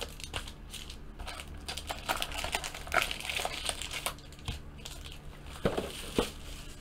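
Foil-wrapped trading card packs crinkling and rustling as they are handled, lifted out of a cardboard box and stacked, with a few sharper clicks among them.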